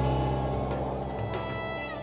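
Background music fading out: sustained string-like chords dying away, with a short downward slide in pitch near the end.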